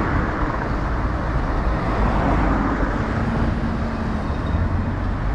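Busy road traffic: vehicles passing close by one after another, a continuous rush of engines and tyres that swells and eases as each goes past.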